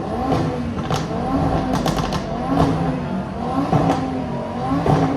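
Car engine revved hard in place through a loud exhaust, in about five quick blips that each rise and fall, roughly one a second. Sharp exhaust cracks and pops come on several of the revs.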